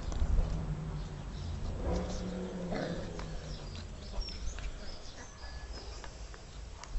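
Sealyham Terrier puppies growling as they play-fight, with short growls about two seconds in and again soon after.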